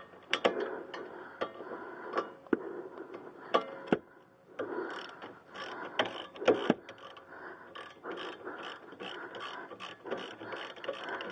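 Socket ratchet wrench clicking in strokes as it backs out a threadlocked rear brake caliper bolt. There is a short pause about four seconds in, and the clicks come quicker and more evenly near the end.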